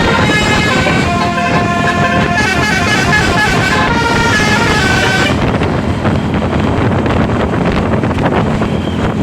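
Bus 'telolet basuri' musical air horn playing a fast tune of quickly changing multi-tone notes, stopping about five seconds in; vehicle noise goes on after it.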